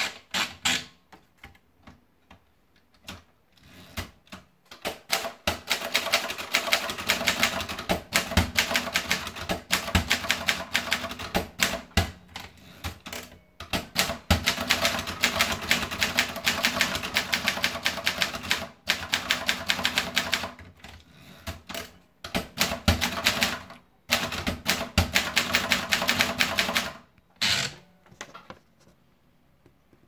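Groma Modell T manual portable typewriter being typed on: rapid clacking of keystrokes and typebars striking the platen, in long runs with short pauses between them. In the first few seconds, a few scattered clicks come from the carriage as the paper is set in.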